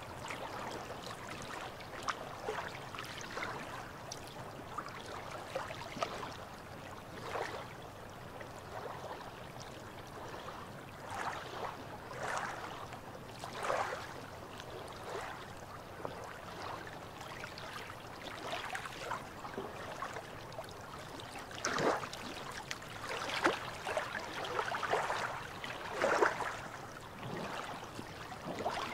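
Small waves lapping against shoreline rocks: a steady wash of water broken by irregular little splashes every few seconds, more frequent near the end.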